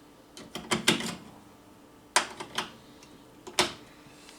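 A series of short, sharp plastic clicks and snaps in small clusters: the battery compartment cover of a biometric safe being opened and AA batteries being handled into place.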